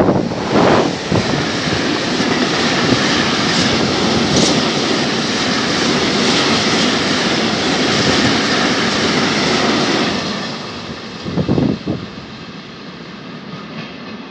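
Electric freight train passing through at speed. It is loudest as the locomotive goes by at the start, then the wagons roll past with a steady rushing rumble on the rails that drops off about ten seconds in, with one more loud rush about a second and a half later as the end of the train goes by.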